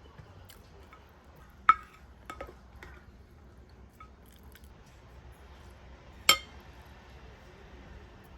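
Glass or dishes clinking: two loud, sharp clinks with a short ring, about two seconds in and again near the end, with a few lighter taps in between.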